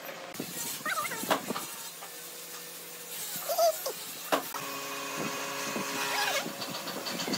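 Square end-grain wooden blocks being shifted and pushed together by hand on a plastic sheet, with a couple of sharp wooden knocks. A few short pitched animal calls cut in, one of them loud, and a steady hum comes in about halfway through.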